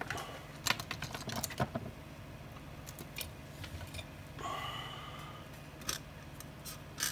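Small hand tools such as tweezers being handled on a workbench: a quick run of light clicks and taps in the first two seconds, then a few single clicks later, with a brief faint squeak about halfway through.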